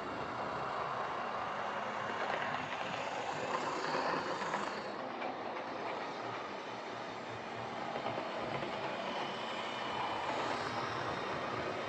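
Lima Class 31 OO gauge model diesel locomotive running round a model railway layout: a steady whirring of its motor and wheels on the track. The sound swells twice, about 3 to 4 s in and again near the end, as the locomotive passes closer.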